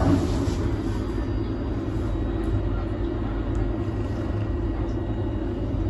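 Caracal purring close up while it is stroked: a steady, low purr with a fast flutter.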